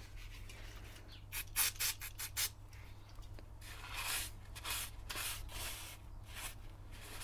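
Paper towel wiped over a drum-brake shoe's friction lining with aerosol brake cleaner, a run of short, faint rubbing and hissing strokes, a quick cluster of them a second or two in and softer scuffs later on.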